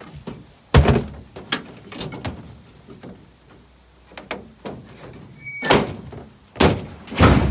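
Plastic trash bins and scrap knocking and thudding against a pickup truck's bed as they are shifted around: a string of sharp thumps, the loudest about a second in and twice near the end.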